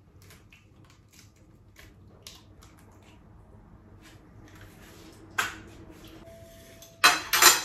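Eggshell handling while an egg is cracked and its yolk is separated from the white by hand over a bowl: faint scattered clicks, a sharper click about five seconds in, and a louder clatter near the end.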